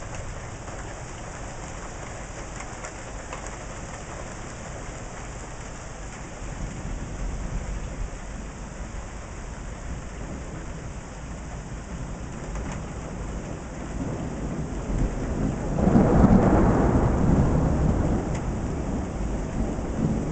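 Steady rain with thunder rumbling, building from about six seconds in to a loud clap near the end, then rolling away.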